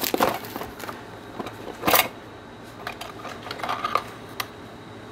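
Small clicks, taps and rattles of hard plastic and small metal parts being handled while rummaging through a plastic parts box, with one louder clatter about two seconds in.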